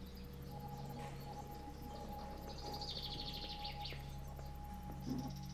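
Ambient outdoor soundscape: a steady low hum and a faint steady tone, with a rapid high-pitched chirping trill lasting about a second around halfway through, and a short low knock near the end.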